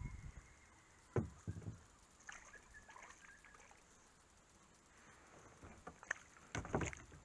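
Quiet knocks and water sounds from a kayak: two short knocks about a second in, and a louder bump near the end.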